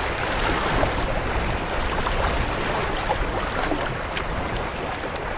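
Wind buffeting the microphone over choppy open lake water, with waves lapping and splashing against the canoe. Small splashes come throughout.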